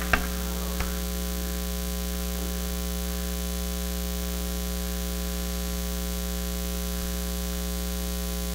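Steady electrical mains hum from the church sound system and microphone, with a sharp click just at the start and a fainter one about a second in.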